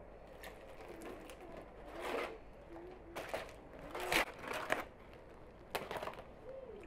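Sheets of thin, dry flatbread crackling and rustling as they are handled and lifted, in several short, separate bursts.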